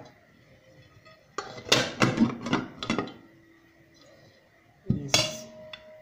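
Metal ring-shaped baking tin knocked several times in quick succession to loosen a baked loaf that is sticking, then one louder clang about five seconds in, ringing briefly.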